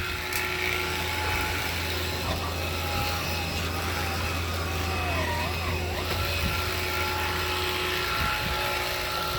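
A cordless stick vacuum running steadily while vacuuming, its motor giving a constant low hum with a few steady whining tones.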